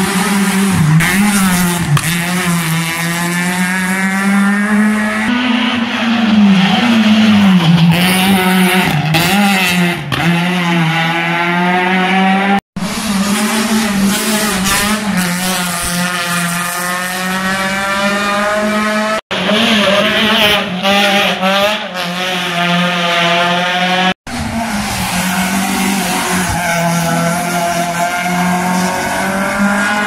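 Rally cars accelerating hard out of a tight tarmac corner one after another, each engine revving up and changing gear several times. The sound breaks off abruptly three times as one car gives way to the next.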